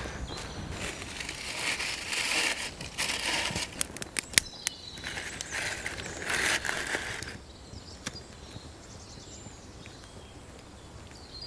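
Dry leaves and twigs crunching and crumpling, with a run of sharp snaps around the middle; it goes quieter about two-thirds of the way in.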